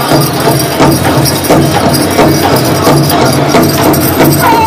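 Powwow drum group performing a fast Men's Fancy Dance song: a large hand drum struck in a steady quick beat, with the jingling of the dancers' sleigh bells. Near the end a high, held singing note comes in.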